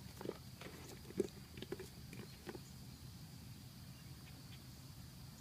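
A pet's faint, short sniffs and snorts during a sneezing fit. There are a handful, all within the first two and a half seconds.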